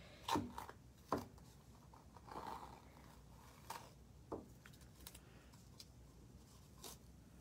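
Masking tape being peeled off a painted canvas: faint, scattered crackles and ticks, with a short rustle about two and a half seconds in.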